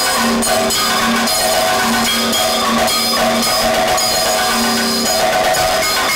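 Kathakali ensemble music: chenda and maddalam drums played in fast, dense strokes with ringing cymbals, over held pitched notes that come and go.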